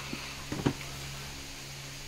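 Roboraptor robot dinosaur toy moving its head and jaw: a few short plastic clicks from its mechanism about half a second in, over a low steady hum.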